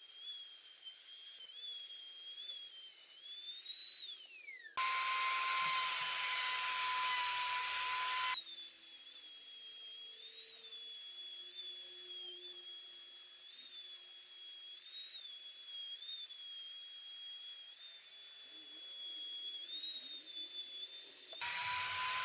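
A small high-speed power tool motor whining steadily, its pitch wobbling slightly. Twice it gives way abruptly to a louder, lower whine with a coarse hiss, a few seconds in and again near the end.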